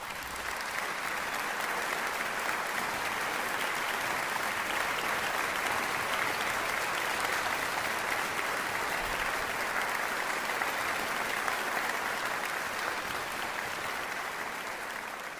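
Audience applauding: a dense, steady crowd clapping that fades out near the end.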